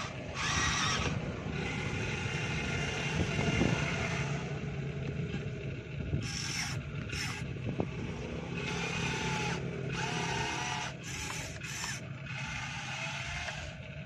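Motors of a radio-controlled model excavator running in on-and-off bursts, over a steady low hum.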